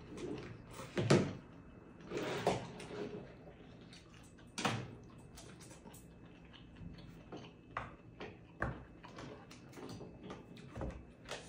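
Spicy instant noodles being slurped with chopsticks, a few loud slurps in the first five seconds. These are followed by a run of small clicks and snips as kitchen scissors cut food held in the chopsticks.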